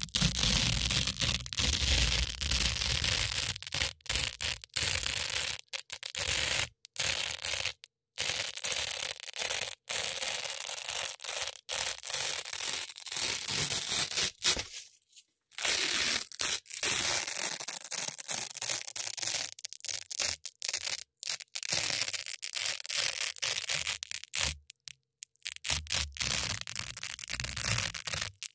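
Hook-and-loop (Velcro) strips being scratched and ripped close to the microphone, a crunchy tearing in quick strokes broken by brief silent gaps, with a longer pause about halfway through.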